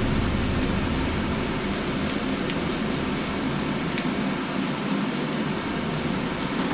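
Fried rice sizzling in a hot pan as a steady hiss, with a few faint clicks.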